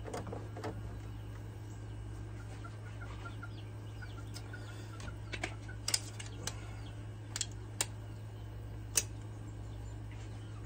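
Quiet tool handling: a few sharp clicks and taps from a pencil and tape measure being worked against a metal pipe, the loudest about six and nine seconds in. Under them runs a steady low hum, and faint bird calls come in the middle.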